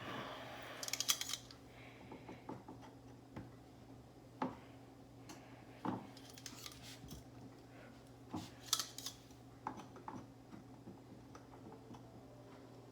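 Parts of a storage stand being handled and fitted together: scattered clicks and knocks, with short bursts of rattling clinks about a second in, around seven seconds and near nine seconds. A steady low hum lies underneath.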